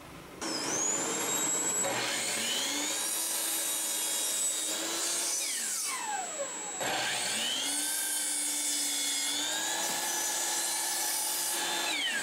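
Hitachi C10FS sliding compound miter saw cutting a wooden board twice: each time the motor spins up, runs steadily, then winds down with a falling whine. A vacuum cleaner pulling sawdust through the hose on the saw's dust port runs underneath.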